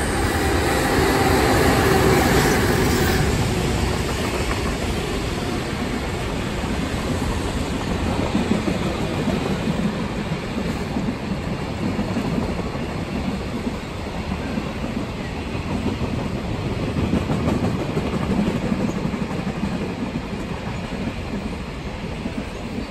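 Trains running past on the rails below: in the first three seconds a passing electric commuter train, with some steady tones over its rumble, then a long container freight train rumbling and clattering steadily over the track.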